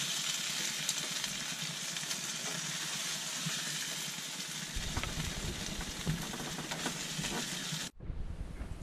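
Hot frying pan sizzling steadily on a high flame after searing mayonnaise-coated tuna steaks, with a few light clicks; the sizzle cuts off suddenly near the end.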